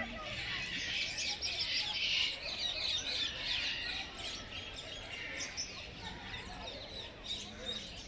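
A dense chorus of many small birds chirping and twittering all at once, busiest in the first few seconds and thinning a little toward the end.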